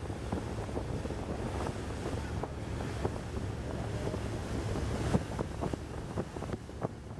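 Wind buffeting the microphone over a steady low boat-engine rumble and water washing, on open river water. One sharper gust or splash comes about five seconds in.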